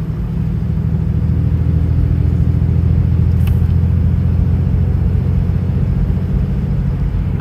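Cummins turbo-diesel engine of a Dodge Ram pickup pulling steadily in fourth gear at about 1,800 rpm, heard from inside the cab as a low, steady drone that grows a little louder about a second in. A single short click about three and a half seconds in.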